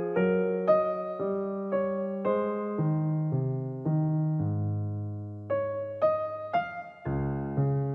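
Background music: a piano-style keyboard playing a slow melody over chords, a new note or chord struck about every half second, with one longer held low chord a little past the middle.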